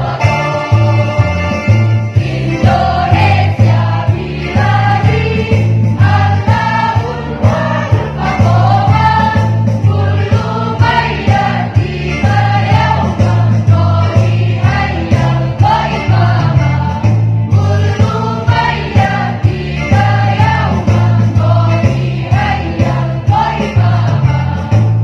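A choir singing together over musical accompaniment with a steady beat and a pulsing bass line.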